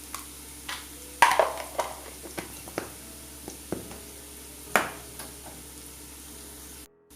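A spoon stirring and scraping through onions and masala frying in oil in a pan, with irregular sharp clinks against the pan over a steady sizzle. The sound cuts out for a moment near the end.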